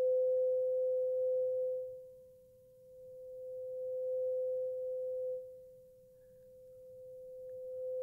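A struck 500 Hz tuning fork rings with a steady pure tone over a PVC tube closed at one end by water. The tone fades, swells to a peak, drops off sharply about five seconds in, then swells again as the tube is moved up and down, loudest when the air column's length resonates at the fork's pitch.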